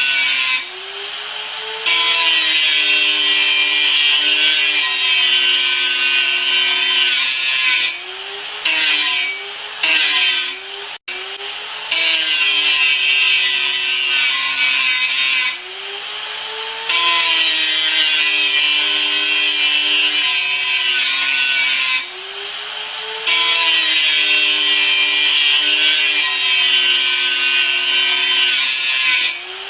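Electric grinder working under load: a loud, harsh grinding hiss over the motor's whine. The whine sags in pitch while the grinder bites and climbs back when it eases off. The hiss stops for about a second every few seconds as it comes off the work.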